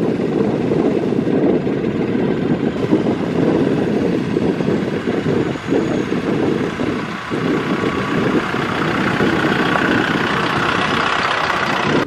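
Farm tractor engine running as the tractor drives up a dirt road, sounding brighter and nearer toward the end.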